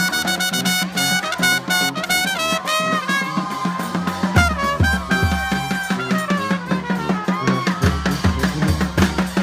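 Marching brass band playing: horns, including saxophone, hold notes over a steady drum beat, and deep bass notes join about four seconds in.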